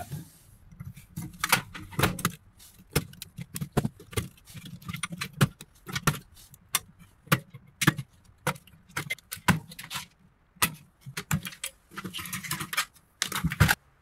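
Wiring and small metal crimp terminals being stripped out of a gutted microwave chassis: a run of irregular sharp clicks and clinks, with a busier stretch of rustling and clatter near the end.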